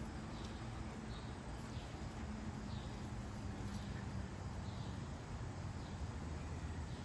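Outdoor background noise with faint, short, high chirps repeating roughly once a second over a steady hiss and low hum.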